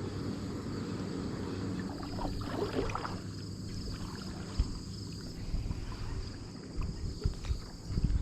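Kayak moving on a river: a steady low rumble of water and wind on the microphone, with a few short low knocks near the end.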